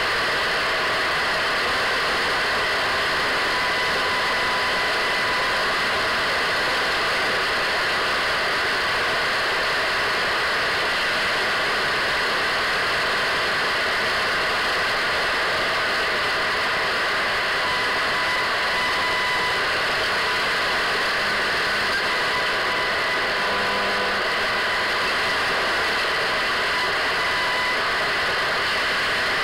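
Radio static: a steady hiss from an untuned radio, with faint whistling tones that come and go.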